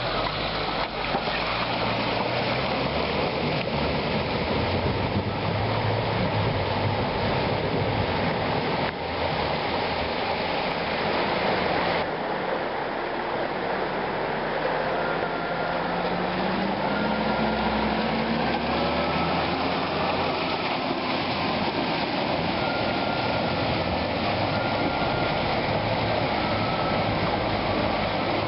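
Rushing river water mixed with four-wheel-drive engines running. About halfway through, one engine's note rises as it revs up.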